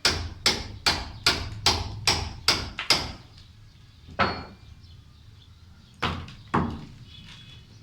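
Hammer striking a steel chisel to chip away a concrete corner: a quick run of about eight blows, roughly two and a half a second, then a single blow and, after a pause, two more.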